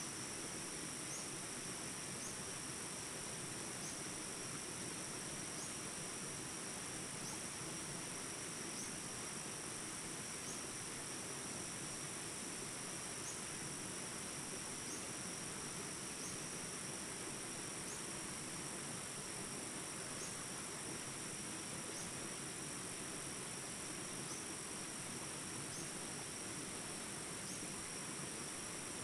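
Steady high-pitched chorus of insects droning without a break, with a short chirp repeating every second or two.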